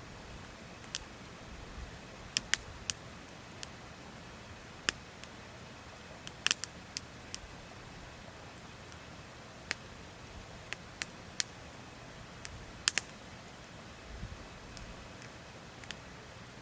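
Wood campfire crackling: irregular sharp pops and snaps, a small cluster about six seconds in and the loudest near the end, over a faint steady rush of a stream.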